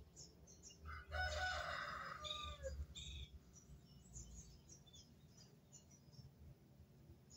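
A rooster crows once, starting about a second in and lasting close to two seconds, with small birds chirping in short high notes around it.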